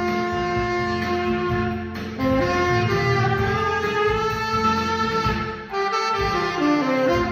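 Tenor saxophone playing a slow melody in D minor, dry with no added effects, over a steady accompaniment. It holds one long note from about 3 s to 5.5 s and breaks off briefly just before 6 s.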